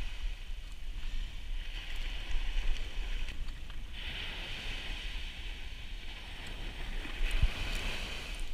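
Wind rumbling on the microphone over the steady wash of surf, with one dull thump about seven seconds in.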